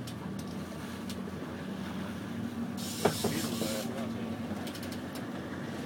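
Boat engine running steadily at low revs under wind and water noise, with a brief burst of hissing spray and a sharp knock about three seconds in.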